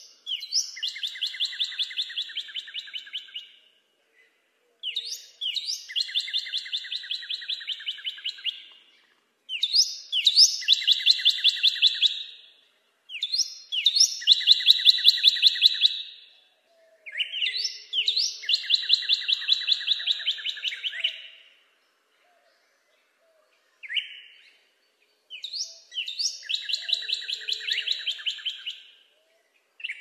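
Northern cardinal singing: a series of song phrases with short pauses between them. Each phrase opens with one or two sharp slurred notes and runs into a fast string of repeated notes, several a second, for about three to four seconds.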